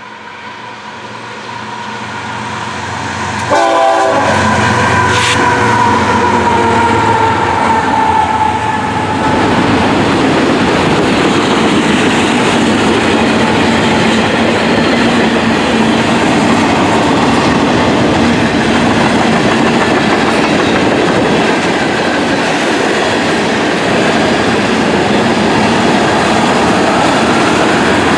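Diesel freight locomotive sounding its air horn as it approaches, louder and louder, coming on suddenly strong a few seconds in; the horn drops slightly in pitch as the locomotive passes. It is followed by the steady rumble and clickety-clack of the freight cars rolling by.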